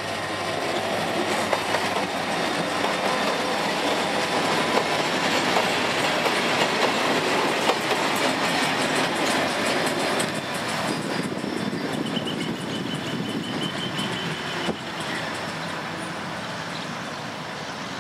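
Short ballast train, a General Motors GT22CW diesel locomotive hauling three hopper wagons, rolling past with wheels clicking over the rail joints. It is loudest midway and fades as the wagons move away.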